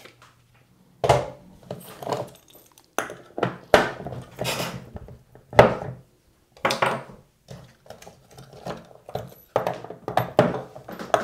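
Small swivel casters being pushed by hand into the sockets of a plastic folding dolly platform on a wooden workbench: irregular clicks, knocks and clatter of hard plastic and metal, in scattered bursts with short pauses between them. The casters press in without tools.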